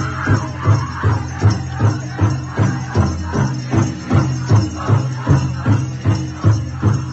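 Powwow drum group beating a large drum in a steady, even rhythm of about two and a half beats a second, with dancers' bells jingling along to it.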